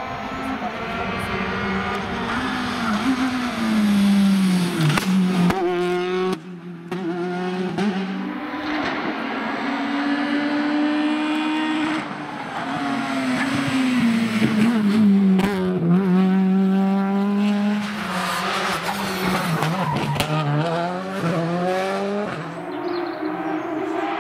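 Rally cars passing one after another at full throttle. Their engines rev up and drop sharply in pitch several times at gear changes and under braking.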